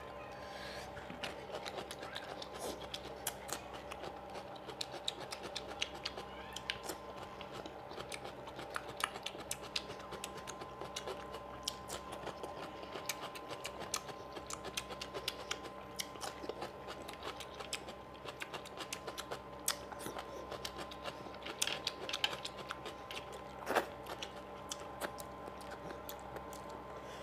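Close-miked chewing and mouth sounds of a person eating by hand, crunching raw cucumber slices. It comes as a rapid, irregular run of small wet clicks and crunches.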